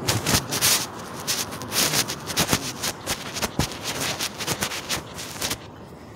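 Rustling and rubbing handling noise on a phone's microphone as it is carried swinging in the hand, in a rapid irregular run of scuffs that stops about five and a half seconds in.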